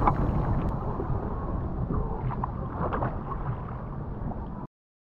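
Wind buffeting the microphone over sloshing sea water around a man wading waist-deep, with a few small splashes; the sound cuts off abruptly near the end.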